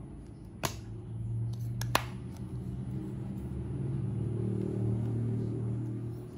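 Two sharp clicks from a rifle scope and its small parts being handled, then a low motor drone that swells and fades over about five seconds.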